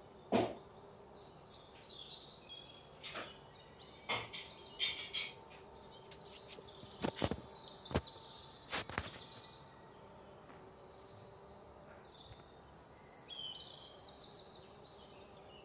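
Small birds chirping and twittering over a steady outdoor background hiss, with a few sharp clicks scattered through it.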